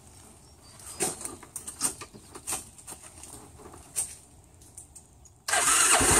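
Scattered knocks and rustles of the rider settling onto a loaded Kymco Xciting 500 scooter, then about five and a half seconds in its single-cylinder engine is started: a brief crank, then it catches and runs at a steady idle.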